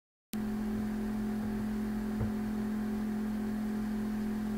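A steady low hum with no speech, coming in after a split-second cut to total silence at the very start.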